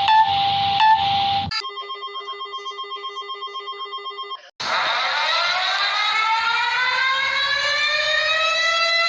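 Sequence of electronic emergency-alert alarm sounds: a steady tone with short clicks over it, then a chord of tones pulsing about six times a second, then, after a brief gap, a siren winding up slowly in pitch.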